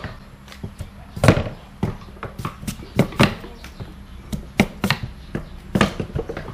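Cleaver chopping on a round wooden chopping block: a string of sharp knocks at irregular intervals, some much louder than others.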